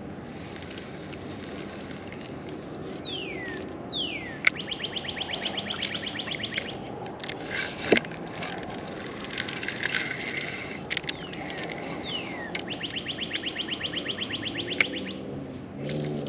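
A songbird singing two songs, each a falling whistled note followed by a long rapid trill, over a steady low background with a few sharp clicks.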